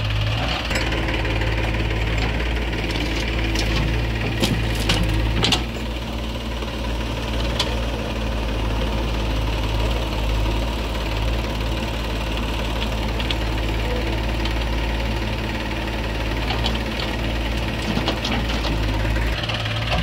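Diesel engines of a tractor and a JCB 3DX backhoe loader running steadily. A few sharp knocks and clatters come about three to five seconds in and again near the end, as the backhoe loads soil into the tractor trolley.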